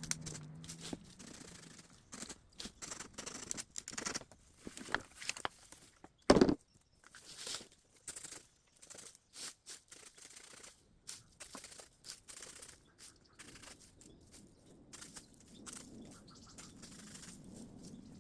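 Irregular snapping, cracking and rustling of bamboo stems and dry debris being handled and trodden on, with one loud hollow knock about six seconds in.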